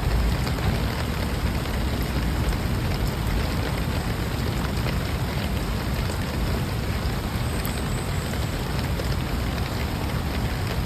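Heavy rain pouring steadily, a dense hiss of drops with many small pattering ticks on hard surfaces and a low rumble beneath.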